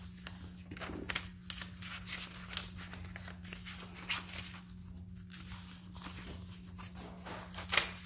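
Paper and fabric pages of a handmade journal being handled and turned: irregular rustling and crinkling with scattered light taps, over a steady low hum.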